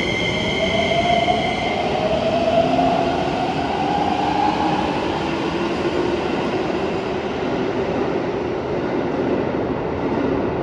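Keikyu 1000 series train pulling out, its Toyo IGBT inverter and Mitsubishi traction motors giving the unusual motor sound that sets this unit apart from others of its class. Steady high whine tones stop about two seconds in. Rising motor whines follow as the train gathers speed, echoing in the underground station.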